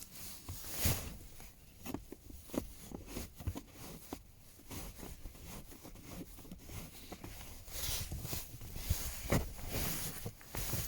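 Screws being driven back into the plastic cover under the glove box: scattered small clicks, taps and scrapes of plastic and tool handling.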